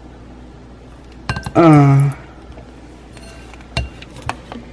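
A plastic measuring spoon clinks against a glass mixing bowl a few times, the sharpest tap near the end, as soy sauce is measured into the bowl. About a second and a half in, a person makes a short hummed sound.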